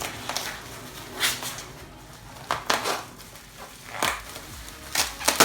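Short bursts of rustling packaging and knocks of handled metal parts as an aluminium adjustable suspension top mount is unpacked from its box and checked.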